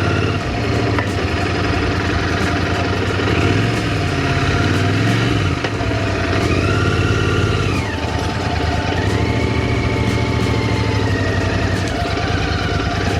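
Motorcycle engine idling steadily, with a few other engine notes rising and falling in pitch.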